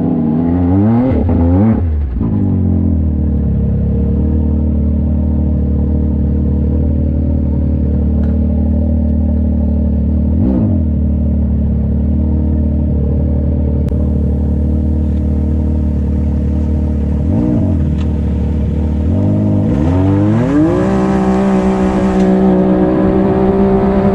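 Can-Am side-by-side's engine running hard at a steady high speed, heard from the driver's seat. Its pitch dips briefly and recovers three times, then rises about 20 seconds in and holds higher.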